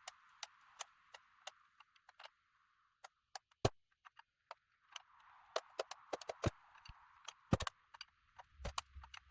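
Irregular sharp clicks, creaks and knocks from a door and its steel flip lock straining under a steadily increasing push; the lock is being forced until it bends. Loud cracks come about a third of the way in and again near three-quarters, with a quick run of clicks between them.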